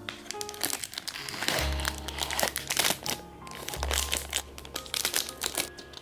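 Plastic packaging crinkling and crackling as it is handled and opened, over background music with a steady bass line.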